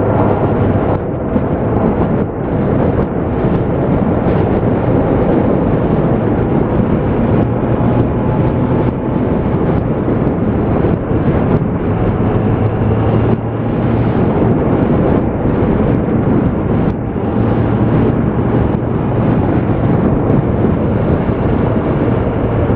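Wind rushing and buffeting over the microphone of a camera on a moving motorcycle, with a Suzuki GSX650F's inline-four engine running steadily underneath at road speed.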